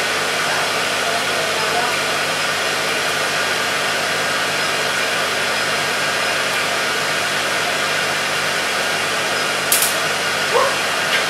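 Steady rush of cold air blowing from a skin-cooling unit's hose onto the skin during laser tattoo removal, over a low machine hum. One short high click about ten seconds in.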